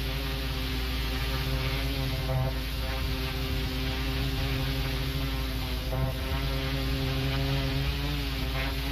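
Pressure washer running steadily, its motor and pump holding one even pitch, with the hiss of the high-pressure jet blasting dirt off block paving.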